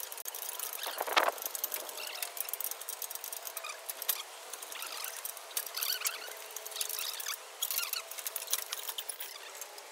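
Engine being hoisted out of a car's engine bay on a chain by a shop engine hoist: many small clicks and rattles with thin wavering squeaky tones and a louder scrape about a second in.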